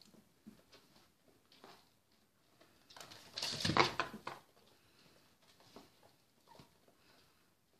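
Puppies moving about on pen bedding, with scattered faint pattering and rustling. About three seconds in, a louder rustling scuff lasting about a second as an adult dog brushes right past the microphone.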